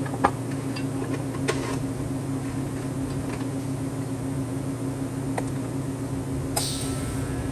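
Steady low machine hum, with a few light clicks and a short hiss near the end.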